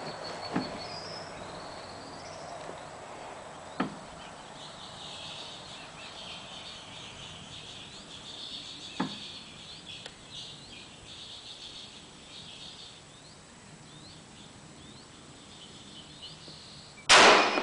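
An M1 Garand .30-06 semi-automatic rifle firing a single loud shot near the end. Before it there are only a few faint sharp cracks and faint high chirping.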